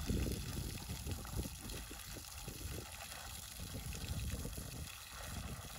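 Water from a garden hose spraying into an elephant's trunk as the elephant drinks, a steady splashing hiss.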